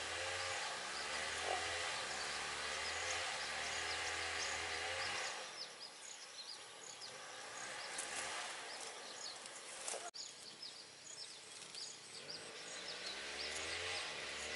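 Rural outdoor ambience of insects and birds chirping, with a low hum and a wavering pitched drone in the first five seconds and again near the end, dropping away in between.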